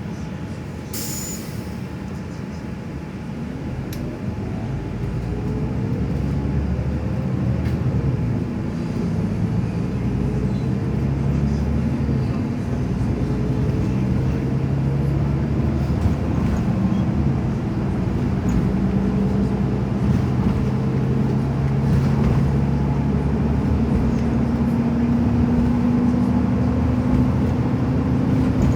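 A vehicle running with a steady low rumble. Its motor tones rise slowly in pitch and the sound grows louder from a few seconds in, as it gathers speed.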